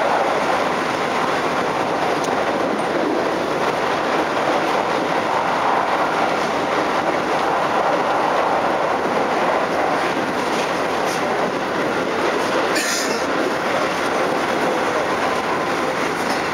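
Keikyu New 1000 series electric motor car with Mitsubishi IGBT-VVVF drive, running at speed and heard from inside the car: steady wheel-on-rail running noise. A brief sharper noise comes about thirteen seconds in.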